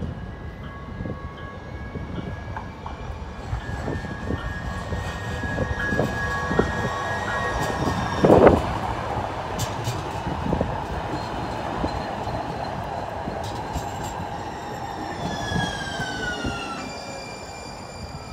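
TRAX electric light rail train passing close by: wheels rumbling and clicking on the rails under a steady electric whine. There is one short loud burst about eight seconds in, and a falling whine near the end as the train pulls away.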